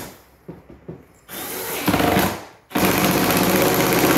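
Power drill driving screws into the plastic toddler tower, in two runs: a short one that gets louder partway through, then a longer steady run near the end.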